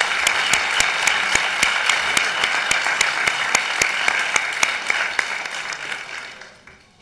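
An audience applauding, many hands clapping at once, dying away near the end.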